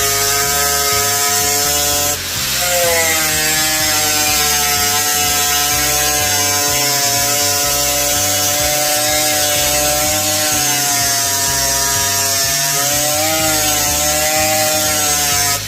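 Electric motor of a shop machine running steadily, with a whine of several even tones. About two seconds in it breaks off briefly and comes back with its pitch sliding up, and it wavers again near the end.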